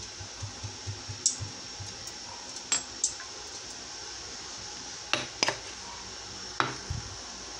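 Cooking oil glugging softly as it is poured from a plastic bottle into a wok for the first second or so, then about six sharp clinks and knocks of kitchenware against the pan.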